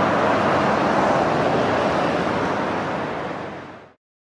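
A steady rushing noise with no clear tone or beat, fading out and dropping to silence about four seconds in.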